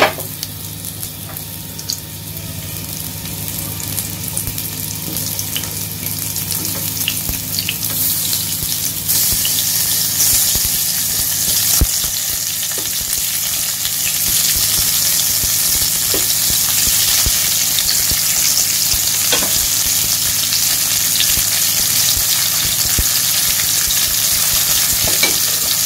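Halved red onions, tomatoes and chillies sizzling in hot oil in a non-stick wok, the frying hiss growing louder as more pieces go in. A few short knocks as pieces are set down in the pan.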